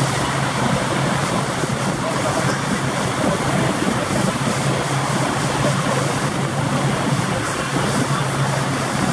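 Pontoon boat's motor running steadily while under way, a constant low hum under a steady rush of water and air noise.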